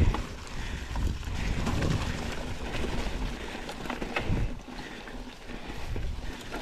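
Mountain bike rolling slowly over a leaf-covered dirt trail: the tyres rumble and rustle through the leaves, with a few sharp knocks from bumps in the trail, the loudest right at the start.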